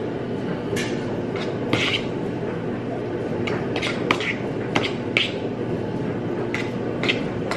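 Forks stirring and lifting noodles in bowls: a scatter of short clicks and scrapes over a steady low hum.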